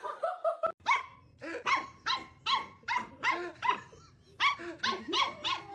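A dog barking rapidly in a long series of short, high barks, about three a second, with a brief pause partway through.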